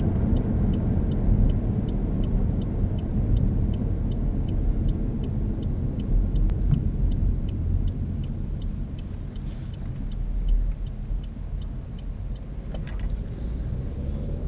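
Steady low road and engine rumble inside a moving 2012 Chevrolet Cruze with the 1.4-litre turbo engine. Over it, the turn-signal indicator ticks about three times a second and stops near the end.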